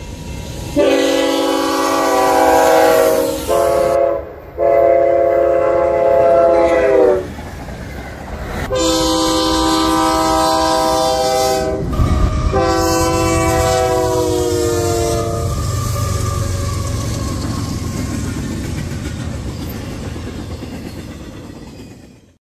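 Locomotive air horn sounding a chord in a series of long blasts with one short one, its pitch dropping as the train passes, followed by the rumble of the passing train fading away.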